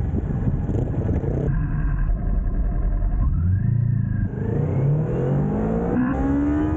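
Kawasaki Ninja sportbike engine under way. The engine note sits low, then the revs climb, with a brief break for a gear change about six seconds in, and climb again.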